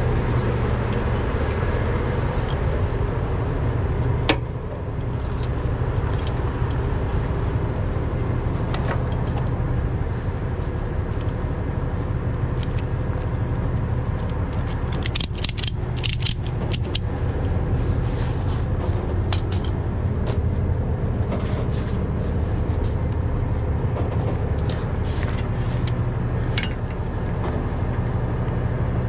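Heavy wrecker's diesel engine idling steadily, with scattered metal clicks and clinks as tow straps and hooks are handled, a loud one about four seconds in and a quick run of them about halfway through.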